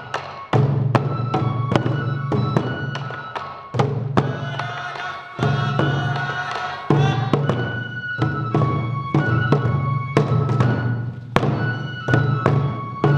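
Sansa odori folk music: taiko drums struck in a quick, driving rhythm under a high bamboo flute (fue) melody. For a few seconds in the middle the drumming thins out and the flute carries on alone.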